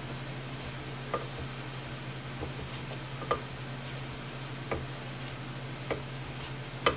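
Flat wood chisel paring a glued-in wooden plug in a guitar headstock: several short, sharp cuts at irregular intervals, each a brief snick. Under them runs a steady air-conditioner hum.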